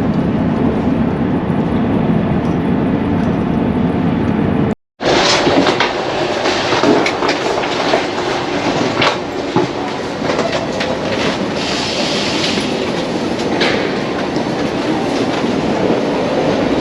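Passenger train running on the rails: a steady low rumble with wheel clatter. Just under five seconds in the sound cuts out, then comes back brighter and noisier, with scattered sharp clicks over the running-train noise.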